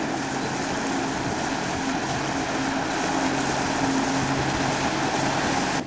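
Motorboat engine running steadily under way with a low, even hum, over a constant rush of water and wind.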